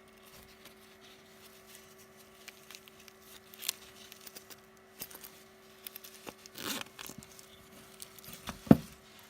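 A fabric money belt and its packaging being handled: scattered small clicks, scrapes and brief rustles, perhaps a zip being worked, with a sharp knock near the end.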